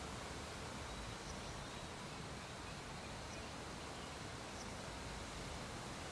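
Steady low hiss with a few faint, irregularly spaced clicks from a Geiger counter registering background radiation.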